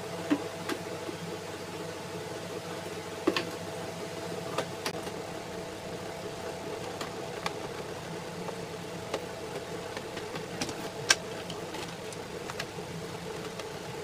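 Screwdriver working the screws out of a Bajaj mixer grinder's plastic back cover, with scattered light clicks and ticks, the sharpest about eleven seconds in, over a steady mechanical hum.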